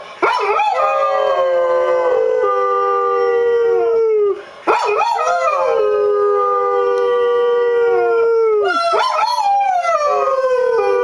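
A dog howling, three long drawn-out howls of about four seconds each. Each howl rises quickly at the start and then slides slowly down in pitch, with a short break for breath between them.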